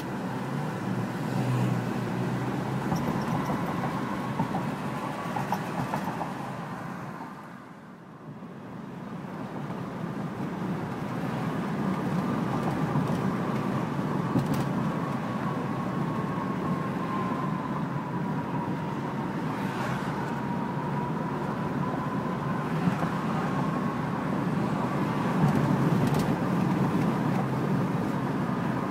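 Road and engine noise inside a moving car, with a faint wavering whine. It dips about eight seconds in and builds back up over the next few seconds.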